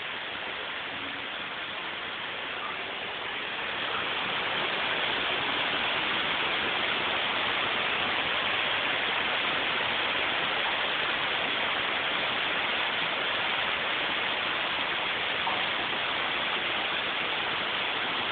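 Heavy rain pouring down in a steady, dense hiss, which grows louder about four seconds in and then holds.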